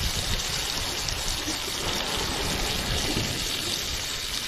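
Steady wash of small sea waves breaking against the rocks of a jetty.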